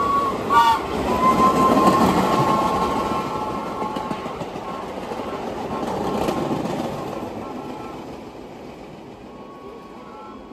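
A New York subway train passing, with a short horn toot about half a second in. Its rumble and wheel clatter are loudest about two seconds in, swell once more, then fade as it moves away.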